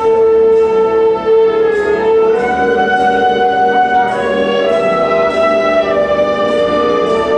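Concert band playing an instrumental passage of long held notes, with brass to the fore, the chords shifting every second or so.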